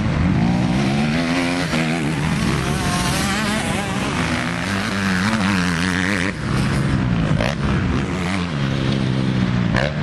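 Several motocross dirt bike engines revving, the buzzing pitch of each climbing and falling back as the riders open and close the throttle, with more than one bike heard at once.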